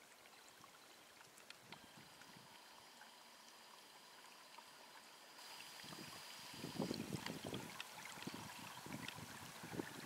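Faint, steady trickling of water from a small stream that stays unfrozen in winter. About halfway through it gets louder, and irregular low rumbles join it.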